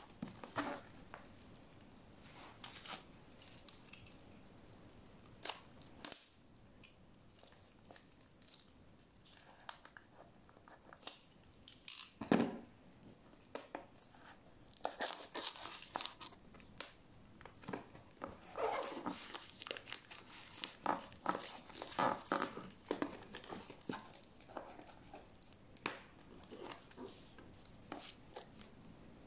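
Plastic shrink wrap on a product box crinkling and tearing as it is snipped with scissors and pulled off by hand. The rustles and snips come irregularly and are busiest in the second half.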